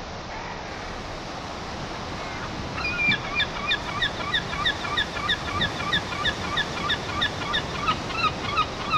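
Surf washing over a rocky shore, a steady rushing hiss. From about three seconds in, a bird calls over it in a rapid, even series of short notes, about three a second.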